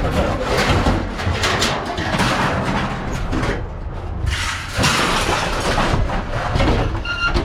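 Loose scrap metal clattering and banging as a truckload is unloaded: a dense, irregular run of knocks and crashes. A brief high tone near the end.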